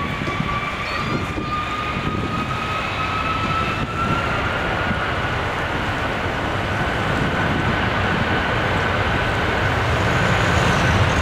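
Airbus A330 jet engines spooling up at the start of the takeoff roll: a whine that rises slowly in pitch over a deep rumble, growing gradually louder.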